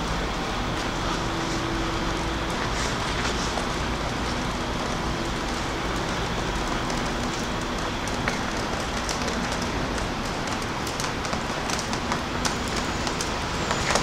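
Steady street ambience of traffic running on a snowy city street, with a faint low hum and scattered light clicks near the end.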